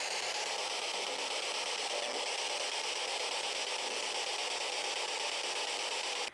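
Steady radio static hiss from a spirit box (a radio sweeping through stations) played through a small external speaker; it stops abruptly at the end.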